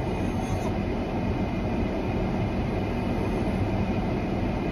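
Steady low rumble with a hiss inside a parked car's cabin, from the vehicle running.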